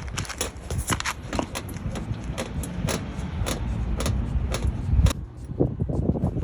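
Rapid, irregular clicking and rattling from the front of a 2013 Mazdaspeed 3 on the move, over a low road rumble. The rattle comes from a loose front headlight whose mounting tabs have snapped, heard on every bump.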